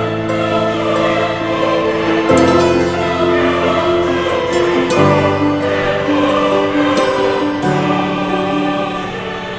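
Background music: sustained chords with choir-like singing, the chord changing every two to three seconds.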